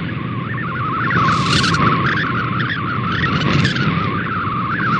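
MFSK64 digital picture signal received over shortwave radio: a rapidly wavering tone around 1 to 1.5 kHz over steady radio static and hiss. It is the sound of a colour image being sent, pixel by pixel.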